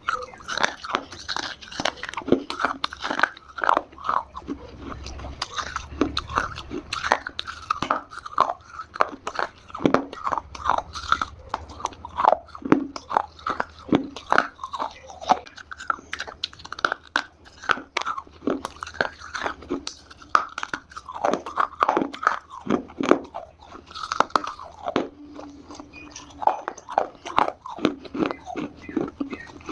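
Close-miked biting and chewing of hard Multani mitti (fuller's earth clay), with many irregular crisp crunches throughout.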